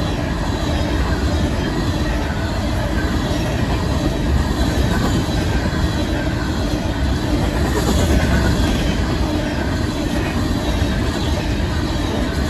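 An empty Union Pacific coal train's open-top coal cars rolling past at speed, with a steady, loud rumble of steel wheels on the rails.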